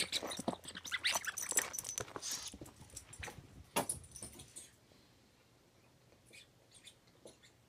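Small dog playing with a toy close to the microphone: a sharp click, then several seconds of rattling, clicking and light jingling, fading to a few faint ticks near the end.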